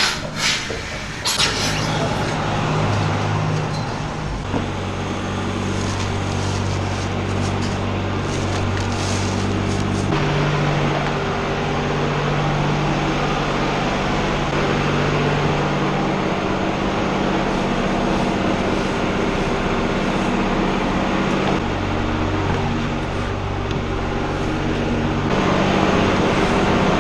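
Farm tractor engine running steadily, its engine speed shifting up and down several times, with a few short knocks in the first couple of seconds.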